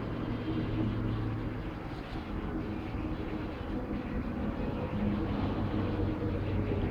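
Steady low mechanical hum and rumble with a few held tones.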